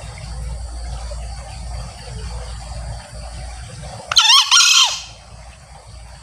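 A male green junglefowl gives one crow a little after four seconds, lasting under a second, its pitch wavering. A steady chorus of crickets runs underneath.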